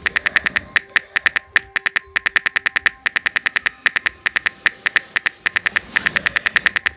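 Phone on-screen keyboard click sounds tapping out a text message letter by letter, fast and even at about eight to ten clicks a second, with a few short pauses.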